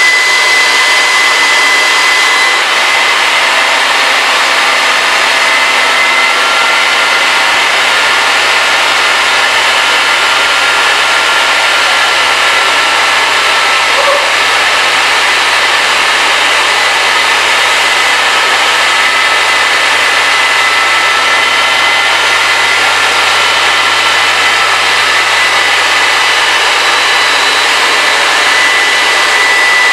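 Handheld leaf blower running steadily, blowing air into the compressor inlet of a turbocharger-based turbojet: a high, steady whine over a loud rush of air. A fainter second whine drifts slightly up and down through the middle.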